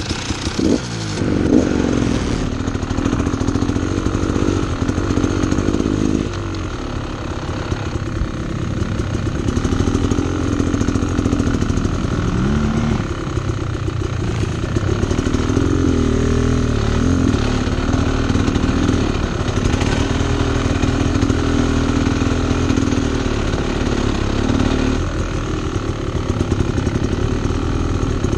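Two-stroke Beta X-Trainer dirt bike engine starting up abruptly and then running while being ridden, its pitch rising and falling with the throttle.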